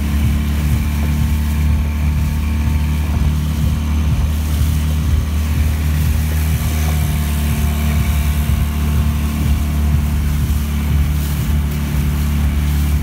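Motorboat engine running steadily, a low hum heard from on board the boat.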